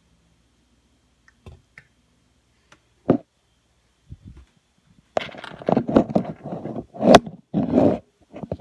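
A single knock, then a few seconds of scraping and clattering as soap mixture is scooped into small cups, with one sharp click among them.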